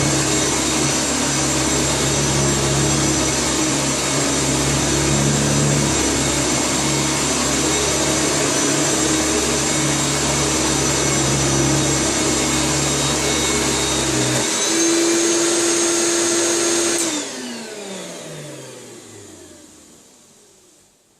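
Hoover Turbomaster Electronic U5080 upright vacuum cleaner running steadily. About fourteen seconds in, its low rumble drops away and the motor note steps up slightly. About three seconds later it is switched off and the motor winds down with a falling whine that fades out.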